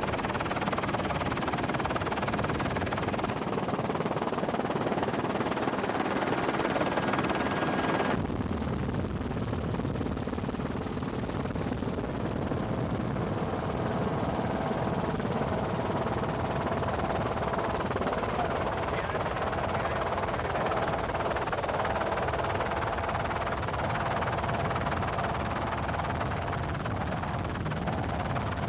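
Steady helicopter noise heard from aboard the aircraft. About eight seconds in the sound changes abruptly and loses much of its hiss, and a faint steady whine runs through it from then on.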